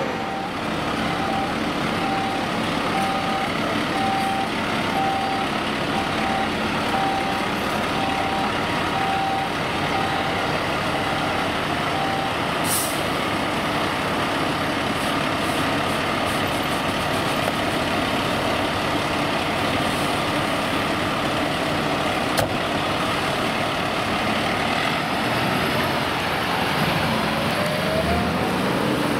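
Fire engine diesel engines running steadily. An electronic beep repeats about once a second for the first twelve seconds, a short burst of air hiss comes near the middle, and a rising engine note sounds near the end.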